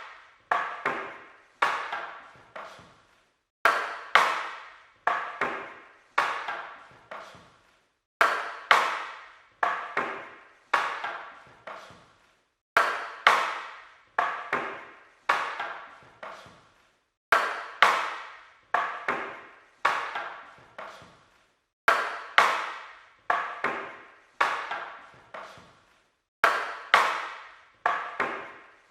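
Wooden weapons clashing in a fight, with sharp wooden clacks that each ring briefly. They come in volleys of four to six hits, loudest at the start of each volley, about every four and a half seconds.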